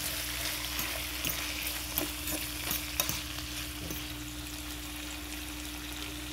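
Curried pig trotters sizzling in a stainless steel frying pan, with a spoon clinking and scraping against the pan several times in the first four seconds as the pieces are turned. A steady low hum runs underneath.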